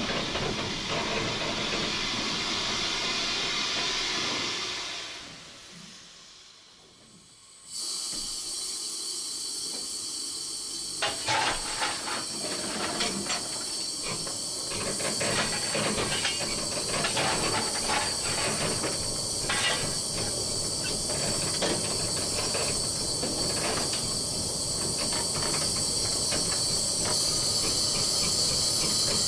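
Steam locomotive cab sound: the running hiss fades away about five seconds in, and after a short quiet a steady high steam hiss returns abruptly, with scattered clicks and knocks over it.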